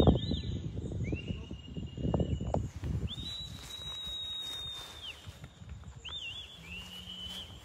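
A sheepdog handler's whistle commands to a working sheepdog. First a quick warbling whistle, then a whistle that rises and holds, a long high steady whistle, and near the end a short warble followed by a rising whistle. Bursts of low rumbling noise sit underneath, loudest at the start.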